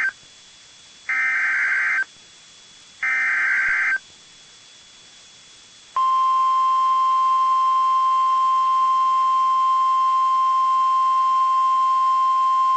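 NOAA Weather Radio emergency alert signal: the end of one Specific Area Message Encoding (SAME) data burst, then two more harsh, screechy digital bursts about a second long and a second apart. About six seconds in, the steady 1050 Hz warning alarm tone starts and holds at one pitch, the alert that precedes a new warning.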